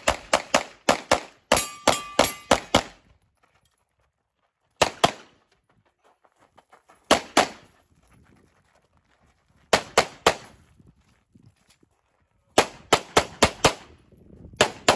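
Open-division pistol fired in fast strings of shots: a rapid run of about ten shots at the start, then pairs and short bursts separated by quiet gaps while the shooter moves between positions, and another fast string near the end. A brief metallic ring is heard among the first string.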